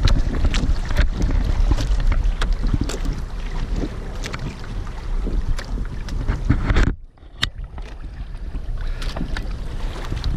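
Wind buffeting the microphone while water slaps and splashes against the hulls of a Hobie sailing kayak trimaran under way. The wind rumble cuts out suddenly about seven seconds in for around a second, then comes back softer.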